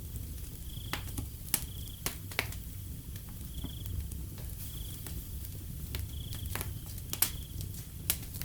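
Wood fire crackling, with sharp irregular pops, a few of them loud, over a low steady rumble. Crickets chirp in short high bursts every second or two.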